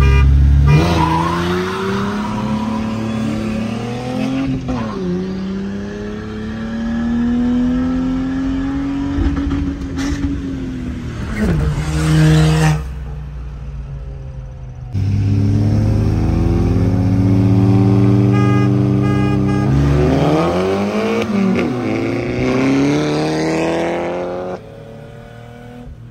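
Stock V6 car engine at full throttle, pitch climbing through the gears and falling back at each upshift, over two hard pulls with a short lull between. It quiets near the end.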